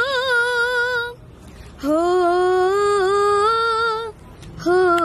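A boy singing unaccompanied, holding long wordless notes with a wavering vibrato: one phrase ends about a second in, a second runs for about two seconds, and a third starts near the end, with short breath pauses between.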